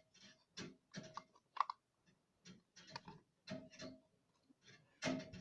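Slime with small beads mixed in being squeezed and stretched by hand, giving faint, irregular clicks and pops, the loudest just before the end.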